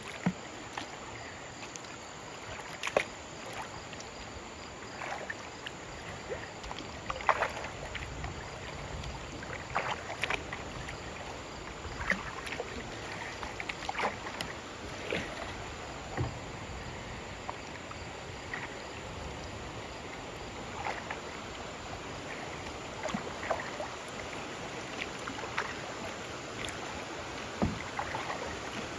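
Kayak paddle strokes: short splashes and knocks every second or two over the steady rush of river water.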